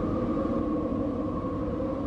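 Eerie horror-style spirit wind sound effect: a steady rushing wind with a few held, moaning tones sounding over it, unchanging throughout.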